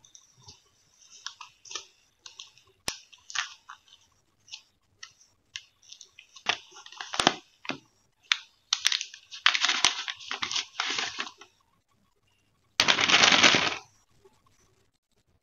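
Handling noise from unboxing a smartphone: crinkling and rustling of the phone's protective sleeve as it is slid off, broken by a few sharp clicks and taps. A louder rustle of about a second comes near the end.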